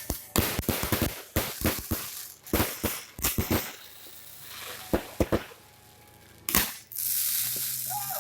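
Fireworks and firecrackers going off: a rapid run of sharp bangs, thinning out around the middle, then a loud bang followed by a steady hissing crackle near the end.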